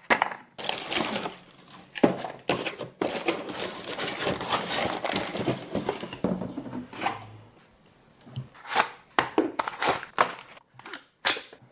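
Cardboard and plastic packaging being handled and opened: rustling and crinkling with frequent clicks and knocks, thinning out to a few separate knocks in the second half.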